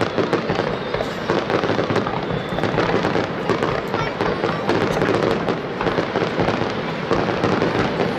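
Aerial fireworks shells bursting in a continuous barrage, many bangs in quick succession with crackling between them.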